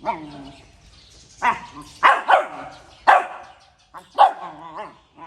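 Puppy barking: about six sharp, high barks, the last drawn out into a wavering yelp.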